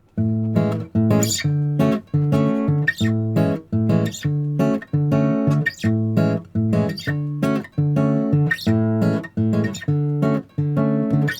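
Background music: strummed guitar chords in a steady rhythm, about two strokes a second.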